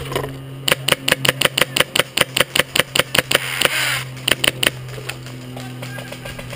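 Airsoft gun firing a fast string of sharp shots, about six or seven a second for roughly four seconds, with a short hiss of air partway through.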